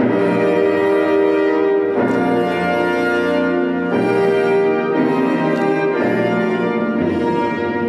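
Orchestral music led by brass, holding broad sustained chords that change about every two seconds.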